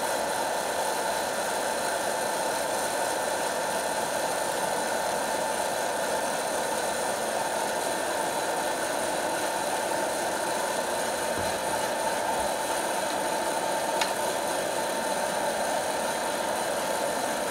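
Hot-air popcorn popper running steadily while roasting coffee beans, its fan motor blowing hot air through the chamber in an even whirr, with one short click late on.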